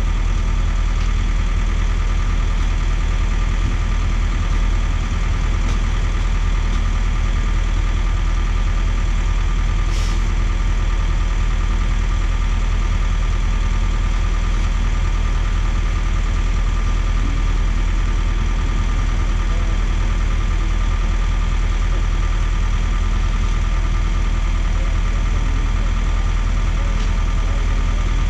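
Engines of a concrete mixer truck and a Schwing trailer concrete pump running steadily side by side, with a low hum and no pumping strokes heard. A single brief click about ten seconds in.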